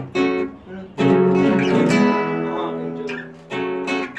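Two acoustic guitars strumming chords together in a steady rhythm, with a brief drop-out about half a second in before the strumming comes back strongly.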